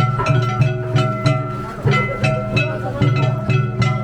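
Danjiri hayashi festival music from a float: plucked shamisen over a steady drum beat of about three strokes a second, with a sustained melody line above.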